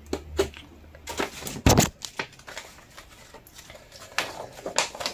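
Cardboard box and paper being handled: rustling and light clicks as a paper instruction booklet is pulled out, with one heavier thump a little under two seconds in.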